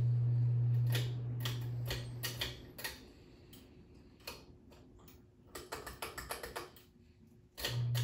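Ceiling fan pull-chain switch clicking and its bead chain rattling, a quick irregular run of sharp clicks. A steady low electrical hum dies away about two seconds in and comes back suddenly near the end.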